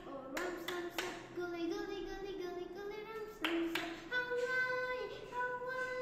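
A young girl singing a short tune in held notes, with a few hand claps near the start and again about three and a half seconds in.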